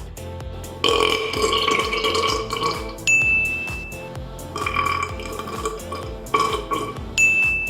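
A person burping: one long burp about a second in, then two shorter ones. Background music with a steady, repeating beat plays under them.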